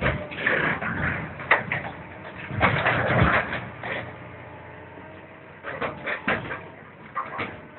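Steel hull of an old deck barge being gripped and crushed by a crawler excavator's demolition shear: irregular metal creaking, scraping and crunching that comes in bursts, with quieter spells between.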